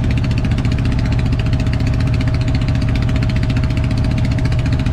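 A small boat's engine running steadily at constant speed, with a fast, even pulsing and a thin steady whine over it.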